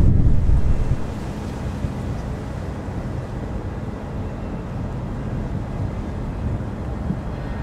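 Wind buffeting the microphone, loud for about the first second, then dropping to a steady low rush with a faint hum underneath.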